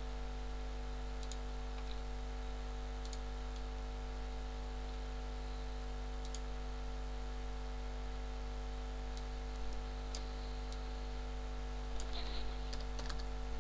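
Occasional computer mouse clicks over a steady electrical hum, with a short run of keyboard taps near the end.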